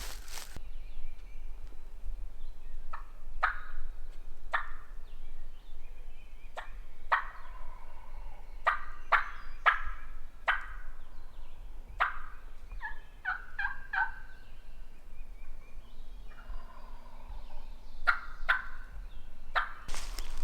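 Several wild turkey gobblers gobbling again and again, their gobbles coming in clusters and overlapping as the birds answer one another.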